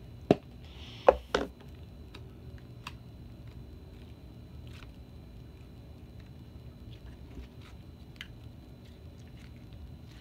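A plastic container's snap-on lid clicking shut, once just after the start and twice more, louder, about a second in. Then faint small ticks and squishes of slime being pulled and pressed between the fingers.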